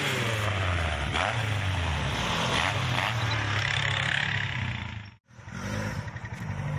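Off-road vehicle engine running steadily. The sound cuts out for a moment about five seconds in, then the engine picks up again and revs up.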